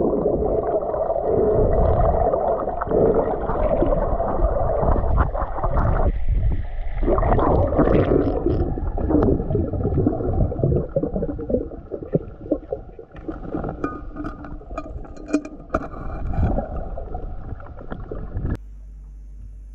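Muffled rushing and gurgling of water heard through a camera held underwater, with scattered sharp clicks in the second half. It cuts off abruptly near the end to a quiet steady hum.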